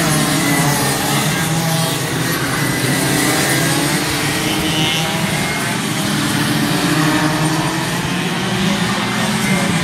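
A pack of 125 cc two-stroke racing karts running hard around the circuit, several engine notes overlapping and rising and falling in pitch as the karts accelerate out of the corners and brake into them.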